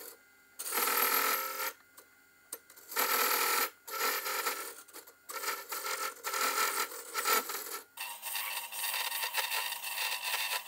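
A roughing gouge cutting a spinning wooden spindle on a Nova Comet II lathe running at 1420 RPM, taking it down to size. The cuts come in bursts of about a second with short breaks between them, then run on without a break for the last few seconds.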